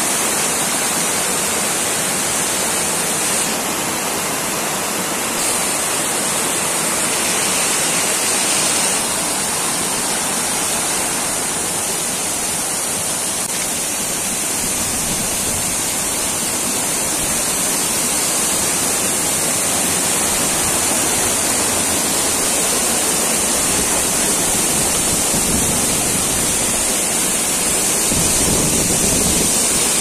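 Waterfall and the cascading mountain stream below it rushing over rocks: a steady, loud wash of falling water.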